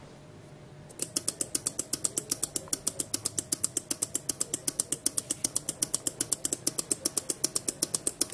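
Three small relays in a capacitor-timed LED chaser circuit clicking rapidly and evenly, about six clicks a second, starting about a second in as power is connected. Each click is a relay switching in turn to step the chaser along its row of LEDs.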